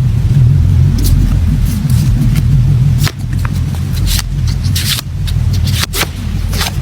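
Packaging being handled and opened close to a phone microphone: a heavy low rumble of handling noise with sharp crinkles and clicks about once a second.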